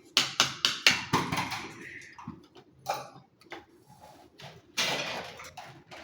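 A quick run of sharp clicks and knocks, about five in the first second, then scattered knocks and a short burst of rustling or clattering about five seconds in.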